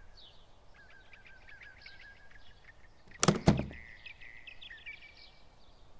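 Faint birdsong chirping in the background, then about three seconds in a short double thump as a small wheeled suitcase is set down.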